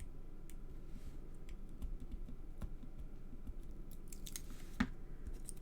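Scattered light clicks and scratchy paper sounds of fingers working at card and picking at the backing of double-sided tape, with a short rustle and a sharper tap near the end.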